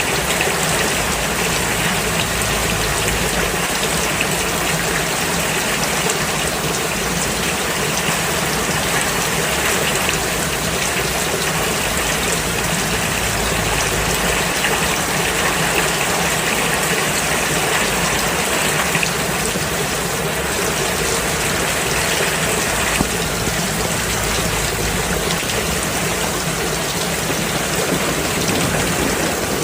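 Steady rain falling, a constant even hiss of water.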